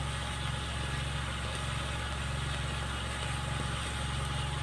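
Steady low drone of an idling engine, unchanging throughout.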